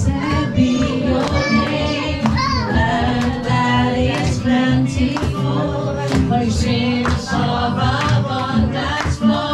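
A Christian worship song: several voices singing over music with a steady beat.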